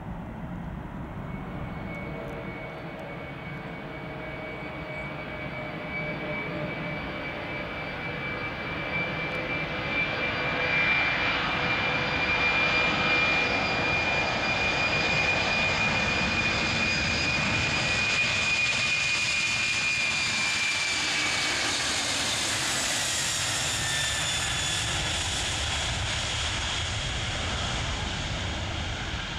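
Boeing 747-400's four General Electric CF6-80C2 turbofans at takeoff power during the takeoff roll: a steady jet roar with a high whine. It grows louder over the first ten seconds, and the whine drops in pitch about twenty seconds in as the aircraft passes, before it lifts off.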